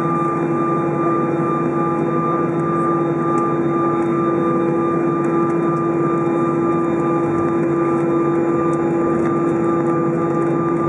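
Airbus A320's jet engines running at idle as the airliner taxis, heard from inside the passenger cabin as a steady drone with a constant hum-like tone.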